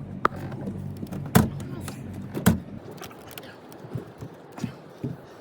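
Sharp knocks and thumps against a low steady hum, like a motor running, that stops about three seconds in.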